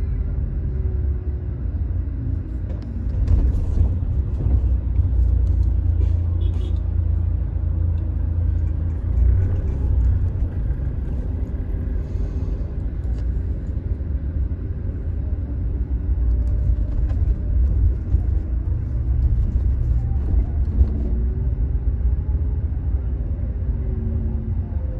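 Steady low rumble of a car on the road, running throughout.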